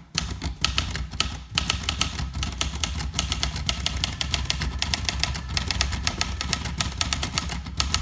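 A 1972 Olivetti Lettera 31 manual portable typewriter being typed on fast: a rapid, steady run of key strikes, the typebars snapping against the paper on the platen.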